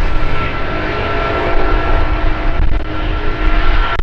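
Fixed-wing aircraft engines running loud over a deep rumble, with a steady high whine and a few lower steady tones held throughout.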